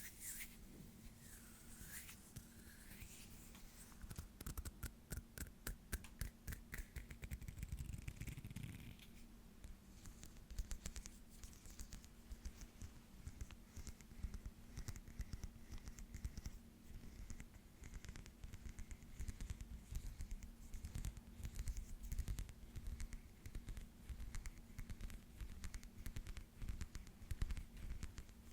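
ASMR hand sounds: hands rubbing and scratching close to the microphone, in many quick, fine, dry strokes, with a faint steady hum underneath.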